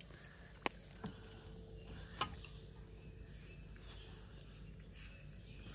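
Faint, steady high-pitched insect chorus drifting over the water, with a few sharp small clicks, the loudest under a second in and two more within the next couple of seconds.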